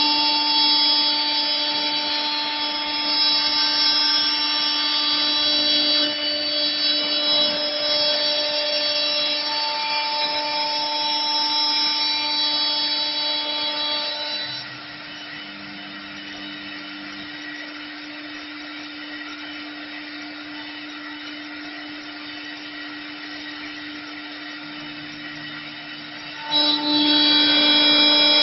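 Router spindle of a CNC wood lathe running with a steady high whine while it carves wood. About halfway through, the sound drops to a quieter hum and stays low for about twelve seconds, then jumps back up near the end.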